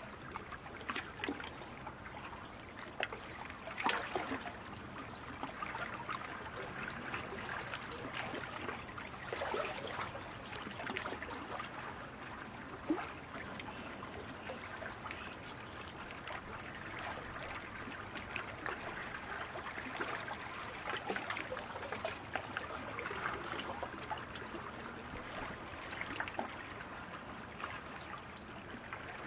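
Steady trickling, splashing water sound from the race course, with many small splashes and a few sharper ones.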